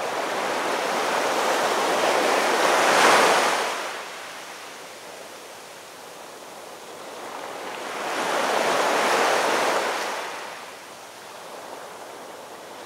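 Ocean waves washing in twice: a rushing surge that builds to a peak about three seconds in and fades, then a second, slightly softer surge a few seconds later.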